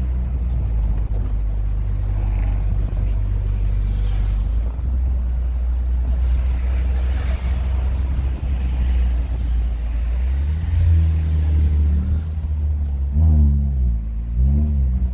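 Exhaust of a Hyundai Tucson 2.0 with the rear muffler removed: a steady, loud, low drone. From about ten seconds in it grows stronger and the pitch rises and falls a few times near the end.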